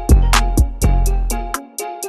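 Background music with a steady beat: deep bass notes and drum hits.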